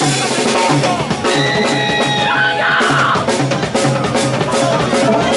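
Indie rock band playing live and loud: drum kit keeping a steady beat under electric bass and electric guitar.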